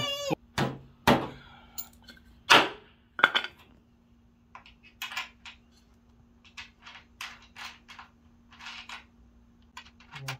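Wooden bed frame being assembled: four sharp knocks on the timber in the first few seconds, then a run of lighter clicks and scrapes as a nut on a bolt through the frame is worked with pliers and by hand.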